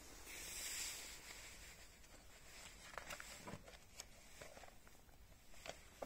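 Faint rustle of paper as a page of a printed booklet is turned, followed by a few soft clicks of handling.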